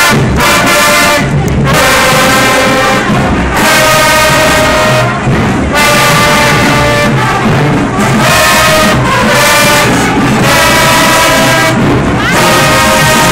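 Marching band brass, sousaphones among them, playing a loud tune in held chords, phrase after phrase with short breaks between.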